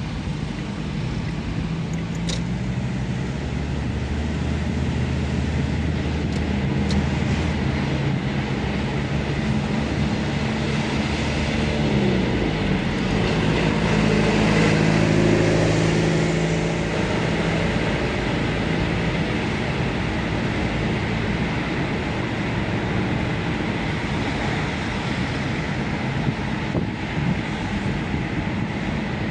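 Steady road and engine noise heard from inside a moving car, with a low engine hum that shifts in pitch about halfway through and is loudest shortly after.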